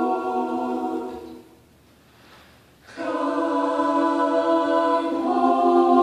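Choir singing held chords in close harmony through microphones. The first chord fades out about a second and a half in; after a short hush a new chord comes in together about three seconds in and moves to another chord about five seconds in.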